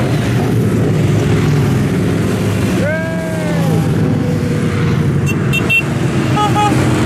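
Steady rumble of many motorcycle engines passing in a dense procession of riders. About three seconds in, a pitched whoop rises and falls, and near the end come a few short high beeps and toots.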